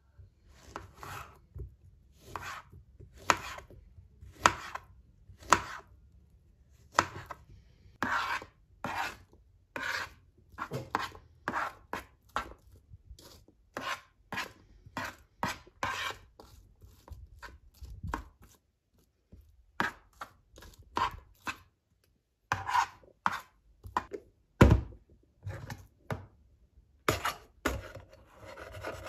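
Kitchen knife chopping banana and apple on a plastic cutting board: an irregular series of sharp knocks, about one or two a second, with one louder knock about three-quarters through. Near the end, a spatula scrapes yogurt from a plastic cup.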